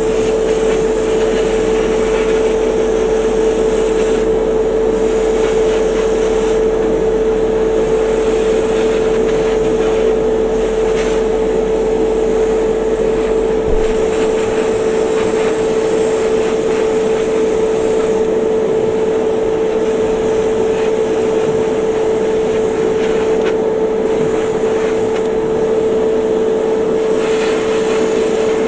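Small electric motor running with a steady hum under a constant hiss of air, as an airbrush sprays paint; the hiss grows brighter and fades in stretches as the trigger is worked.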